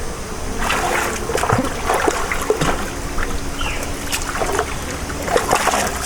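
Shallow river water splashing and trickling in irregular bursts, starting about a second in, as a spear is driven down at a stingray in the shallows.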